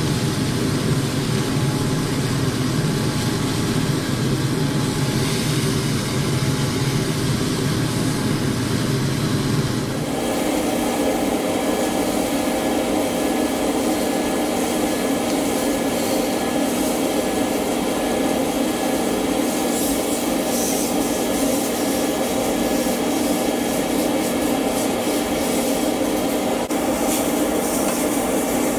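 Beef steak sizzling as it pan-fries in oil, a steady hiss. The low rumble beneath it changes to a slightly higher drone about ten seconds in.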